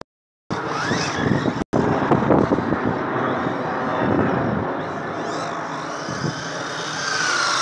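Brushless electric motor of a Strada XT EVO RC truck whining as it revs up and down, its pitch rising and falling, over a steady rushing noise as the wheels spin through snow.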